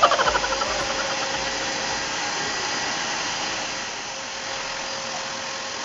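Vacuum cleaner running steadily with an even hiss and a faint steady hum. A short, high wavering sound comes at the very start.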